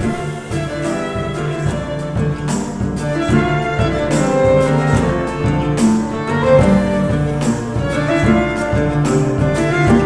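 A small band playing live: a violin carries the melody over oud, upright piano and drums, with the drums keeping a regular beat from a couple of seconds in.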